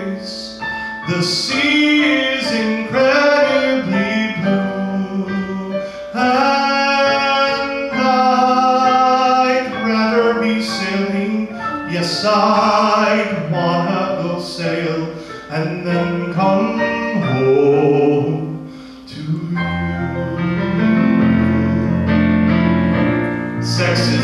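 A man sings a musical-theatre song into a microphone, accompanied on an electronic keyboard. Deeper bass notes enter on the keyboard towards the end.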